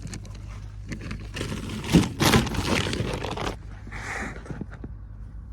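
Rustling and scraping handling noise close to the microphone, with a couple of sharp knocks about two seconds in, over a low steady hum.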